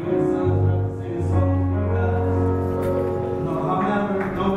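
Men's gospel vocal group singing in harmony, the voices holding long notes over a low bass note.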